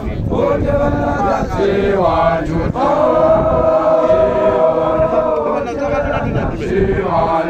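A group of young Basotho male initiates chanting an initiation song together. Short phrases lead into one long held chord in the middle, and shorter phrases follow.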